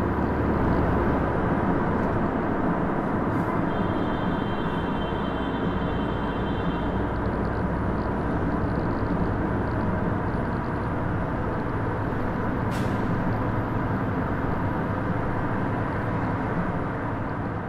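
Steady road and engine noise of a vehicle driving through a highway tunnel, heard from inside the cab.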